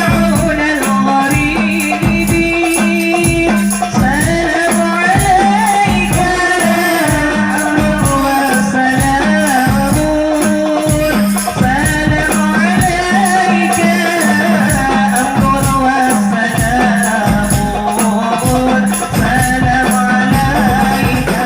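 Hadroh ensemble performing sholawat: a melody sung over a steady, fast beat of hand-struck frame drums with a rattling jingle on top.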